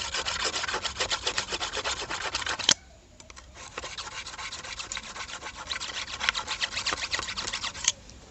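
Rapid rasping scraping strokes, several a second, in two runs of about three and four seconds. Each run stops abruptly with a sharp click.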